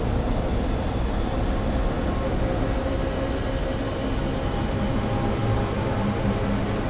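Experimental ambient noise-drone music: a dense, steady wash of low noise with a few faint held tones, and a high hissing shimmer that comes in about two seconds in.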